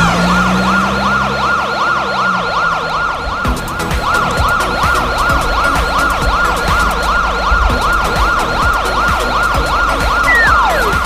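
Police siren yelping in quick rising-and-falling sweeps, about three or four a second, over a low rumble. A single falling glide comes near the end.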